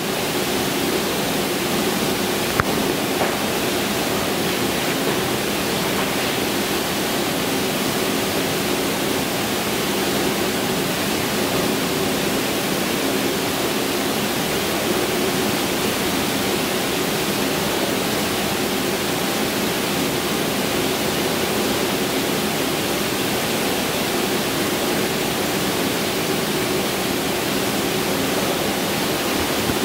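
A steady, even rushing hiss that comes up quickly at the start and then holds level, with no other events in it.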